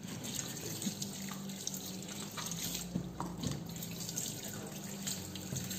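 Kitchen tap running in a steady stream into a stainless steel sink while hands rub and rinse peppers and leaves under it, with small splashes and clicks. A faint low hum runs underneath.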